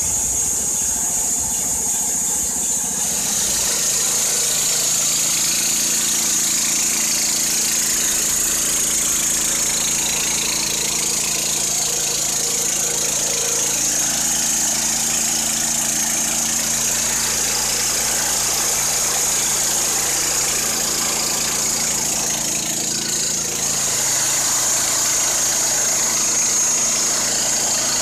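Kohler Pro-15 petrol engine running steadily as it drives a Wood-Mizer LT15 band sawmill, with a steady high whine over the engine note. The engine sound shifts about three seconds in, then holds steady.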